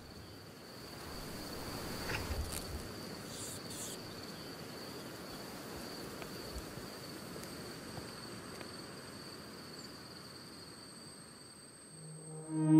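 A steady high-pitched ringing tone over faint background hiss, with a second, higher tone joining about halfway through.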